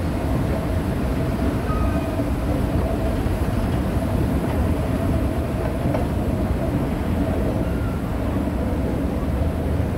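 Subway station escalator running upward: a steady low mechanical rumble with a faint hum held at one pitch.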